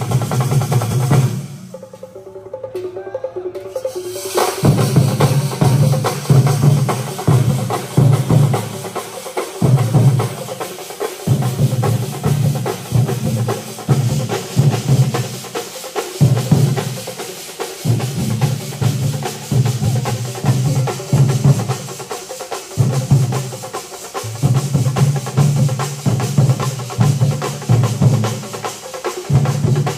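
Thambolam troupe playing loud massed drums beaten with sticks, with clashing metal cymbals, in driving rhythmic phrases broken by brief pauses. The drumming drops out for about three seconds near the start, then comes back in full.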